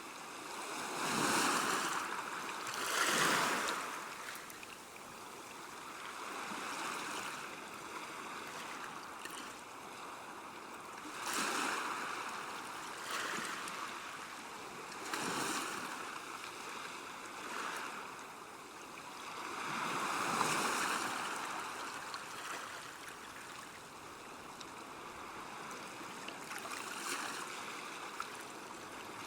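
River water moving along a bank: a steady wash that swells louder and fades every few seconds, like small waves.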